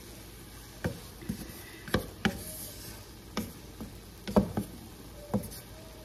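Wooden spatula stirring fried rice in a frying pan, giving irregular scrapes and knocks against the pan, about seven in six seconds. The burner is off, so nothing sizzles.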